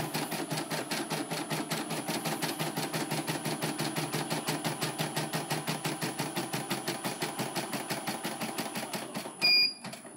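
CNY portable computerized embroidery machine stitching, its needle going at a fast, even rhythm. Near the end the stitching stops and the machine beeps, the signal that a colour section of the design is finished and the thread must be changed.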